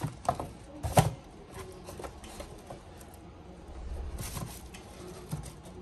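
Hands handling a pair of canvas sneakers in a cardboard shoebox lined with crinkly wrapping: a few sharp knocks and clicks in the first second, then a stretch of rustling wrapping about four seconds in.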